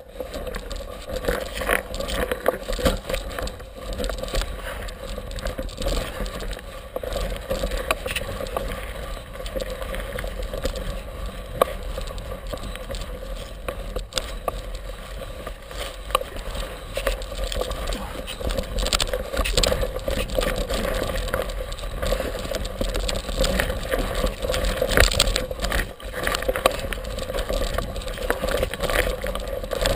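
Ride noise from a 2011 Torker DX mountain unicycle going downhill on a rocky dirt trail, picked up by a camera mounted on the unicycle: continuous rattling and scraping of the knobby tyre over dirt and rock, with frequent sharp knocks from bumps.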